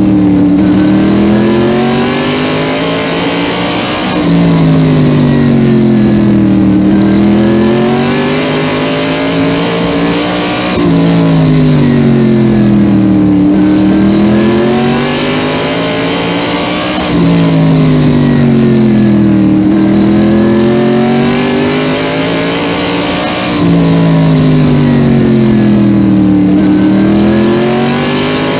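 SK modified race car's V8 engine at racing speed, heard from inside the cockpit. The engine note falls and climbs again about every six and a half seconds, once per lap of a short oval, as the driver lifts for the turns and gets back on the throttle down the straights.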